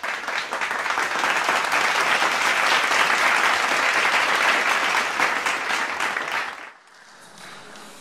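Audience applauding: dense clapping that stops abruptly near the end.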